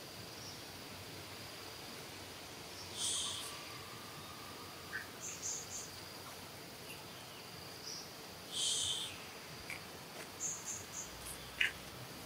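Steady high-pitched insect drone, with two louder buzzy bursts about three and eight and a half seconds in and a few short high chirps in between and near the end.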